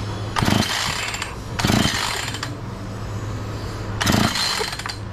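Husqvarna 445 two-stroke chainsaw being pull-started: three pulls of the recoil starter cranking the engine, which does not fire. The saw won't start with its low-idle mixture screw just backed out half a turn.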